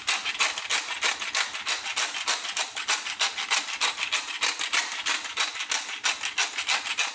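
Hand-held pepper mill being twisted, grinding peppercorns in rapid rasping crunches, about five or six a second.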